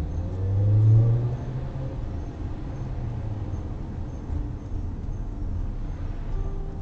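Honda S2000 CR's four-cylinder engine accelerating away ahead, loudest about a second in. It then gives way to a steady low road rumble, heard from inside a following car.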